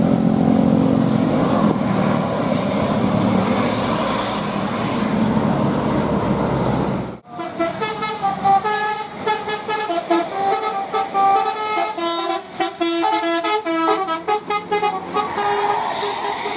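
Steady road-vehicle rumble. About seven seconds in it cuts off suddenly, and a bus's telolet horn follows: a multi-tone musical horn playing a quick tune of stepped notes for about seven seconds, until the traffic rumble returns near the end.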